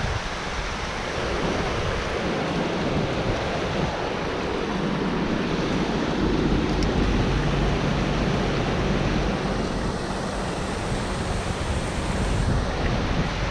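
Steady rush of water pouring through a spillway.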